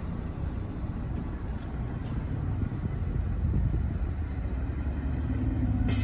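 Fire engine's diesel engine rumbling as the truck approaches, slowly growing louder.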